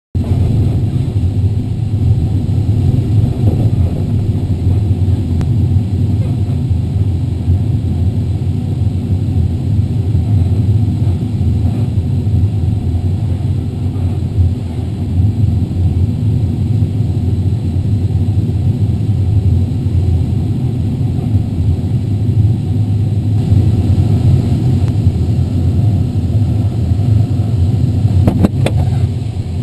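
Steady low rumble of airflow and buffeting in the cockpit of an LS8-18 sailplane climbing on aerotow, with a few sharp clicks near the end.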